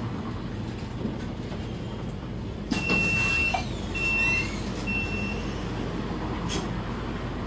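Scania K320 articulated bus's diesel engine running low and steady, heard from the driver's cab. Near the middle a short rush of noise is followed by three high beeps about a second apart.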